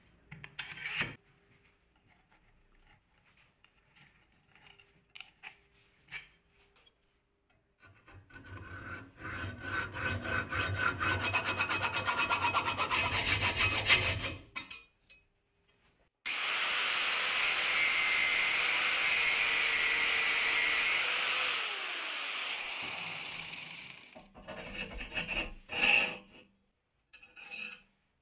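Hand hacksaw cutting through a metal tube clamped in a bench vise, in a run of quick rasping strokes. After it stops, a steady power-tool noise runs for about eight seconds and winds down, falling in pitch near the end, followed by a few knocks of metal parts.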